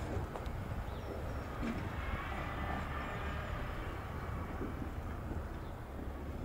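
Manually worked wooden level crossing gates swinging shut across the road, driven from the signal box through rods and gearing: a steady low mechanical rumble, with a faint higher whine in the middle and a few light clicks.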